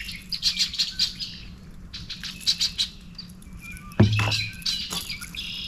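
Birds chirping and calling over and over in short, high notes, with a sudden thump about four seconds in.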